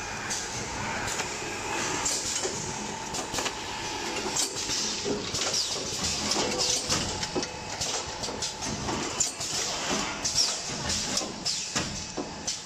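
Automatic snack cartoning machine running: a continuous mechanical clatter of many small clicks and knocks over a faint steady hum.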